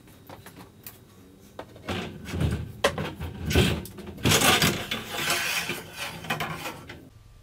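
Metal clanking and rattling as a garage door torsion spring shaft is handled and lifted up into its brackets. A few light clicks come first, then a busier run of knocks and scraping from about two seconds in.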